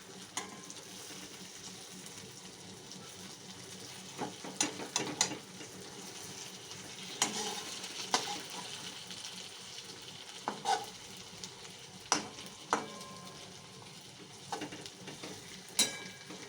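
Capsicum pieces sizzling in oil in a kadhai, the added water now cooked off, while a spatula turns them over; a steady sizzle with scattered sharp clacks of the spatula against the pan, some in quick runs of two or three.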